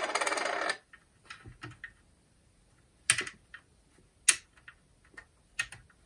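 Small clicks and taps of a Makita DCF203 cordless fan's plastic housing and screws being handled during disassembly. A rapid run of clicking stops under a second in, then scattered light clicks follow, with two louder ones about three and four seconds in.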